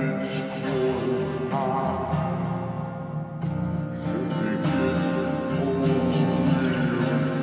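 A song with strummed acoustic guitar and a singing voice, played back through a phone app's karaoke echo effect.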